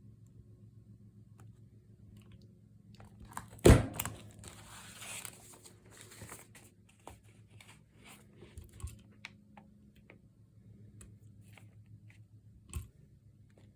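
Crop-A-Dile hand punch biting through the folded paper and envelope layers with one loud sharp snap about four seconds in, followed by a couple of seconds of crinkling paper as it is handled, then a few lighter clicks.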